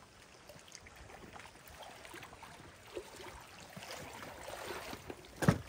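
Plastic kayak being paddled through shallow water: faint water sloshing and paddle splashes, with one sharp knock near the end.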